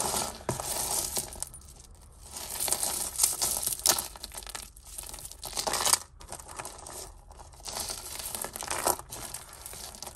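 Costume jewellery being handled and sorted: plastic beads and metal pieces clicking, clinking and rattling against each other in irregular clusters.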